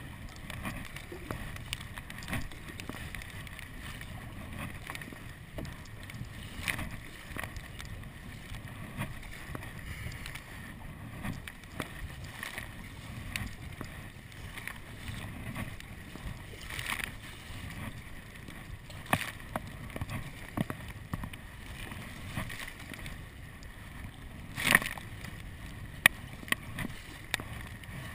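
Kayak paddling through choppy water: the paddle blades dip and splash every second or two, and waves slap the deck right at the camera, over a steady low rumble. The loudest splash comes about three-quarters of the way through, and a few sharp ticks come near the end.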